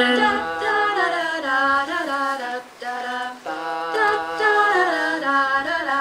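Women's a cappella group singing held chords in close harmony, with no instruments. The singing drops briefly a little before the middle, then the chords resume.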